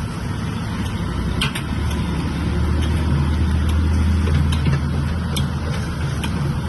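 A vehicle engine running with a steady low hum that grows stronger about a second and a half in, with a few light clicks over it.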